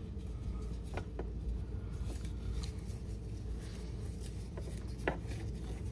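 Nylon seatbelt webbing being fed by hand through a plastic buckle on a plastic ride-on toy: faint rustling of the strap and a few small plastic clicks, the loudest about five seconds in, over a steady low hum.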